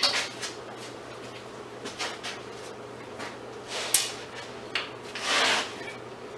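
Scrap light-fixture parts being handled and pulled apart by hand: scattered light clicks and rubs, a sharp click about four seconds in and a short scrape about five seconds in, over a faint steady hum.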